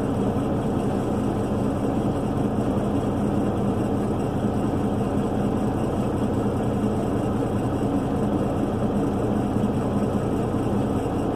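Semi truck's diesel engine idling, a steady unchanging hum.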